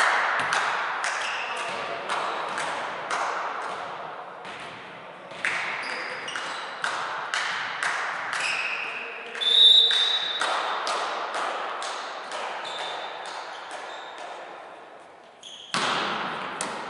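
Volleyballs bouncing and being struck, each thud echoing through a large sports hall, over a wash of players' voices. A short shrill whistle sounds about ten seconds in, and a hard hit comes near the end.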